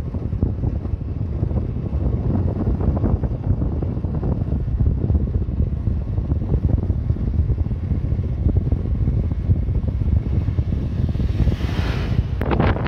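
Motorcycle under way at moderate speed: wind rumbling and buffeting on the microphone, with the engine running underneath. A short hiss rises near the end.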